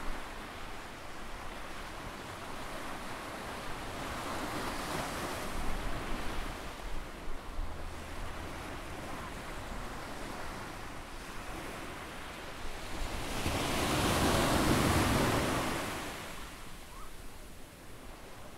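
Surf on a sandy beach: a steady wash of waves, with one wave breaking about four seconds in and a louder one rising and falling away about two-thirds of the way through.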